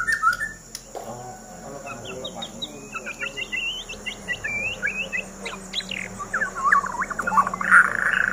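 White-rumped shamas (murai batu) singing: a quick, varied run of short whistled notes and chirps, crowding into a dense, loud flurry near the end. These are caged males singing against a rival shama.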